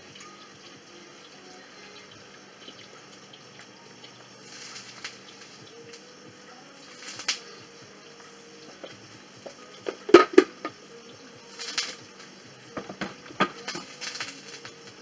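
Spatula scraping marinade off a cooking robot's lid cap into the bowl: faint scraping sweeps with a few sharp knocks, the loudest about ten seconds in. Near the end, knocks and clatter as the steel mixing bowl is set back onto the machine's base.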